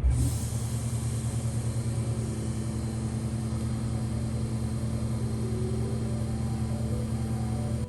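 CNC milling machine running steadily while machining acrylic, with a low hum and a steady hiss. It starts abruptly.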